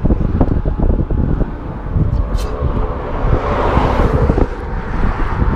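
Wind buffeting an outdoor microphone, mixed with the noise of road traffic on the bridge; the traffic noise swells a few seconds in as a vehicle goes by.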